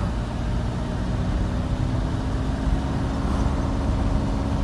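Steady engine and road noise inside a moving car's cabin, a continuous low rumble with a faint constant hum.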